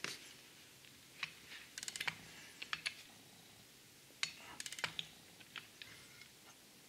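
Faint clicking of a ratcheting torque wrench as a nut is tightened down on a jet pump bearing, in short runs of quick ticks about two seconds in and again near five seconds, with single ticks between.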